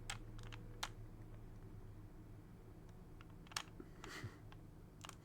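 Plastic clicks of an original Rubik's Cube's layers being turned by hand: a few separate, irregular clicks over a faint low steady hum.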